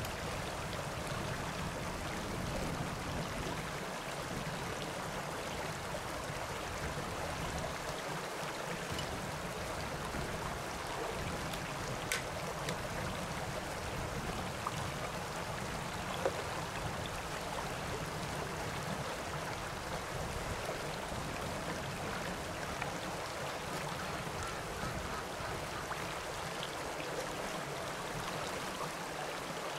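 Shallow stream running steadily over rocks, with a few brief clicks of a knife against a freshwater pearl mussel shell.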